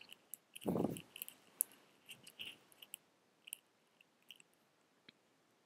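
Faint scattered small clicks and ticks, with one short soft rush of noise about a second in.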